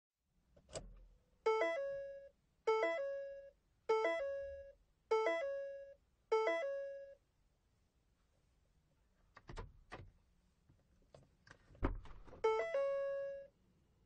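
Car's open-door warning chime: five two-note chimes about a second apart after an opening click, then a few clicks and a heavy thunk, and one more chime near the end.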